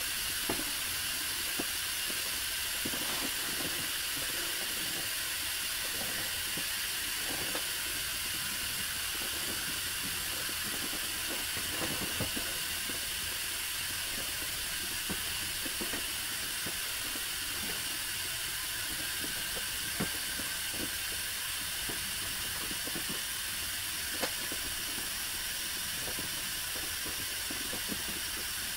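Air hissing steadily out of a vinyl inflatable's open valve as it is pressed flat to deflate it, with a few faint brief taps now and then.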